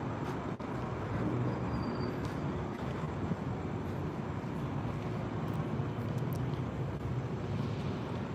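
Steady city street traffic noise: a low, even rumble of vehicles.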